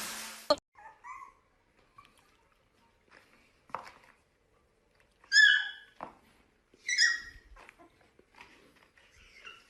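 A dog whimpering and yelping: faint high whines that rise and fall, and two loud high-pitched yelps about five and seven seconds in. A loud hissing noise cuts off suddenly half a second in.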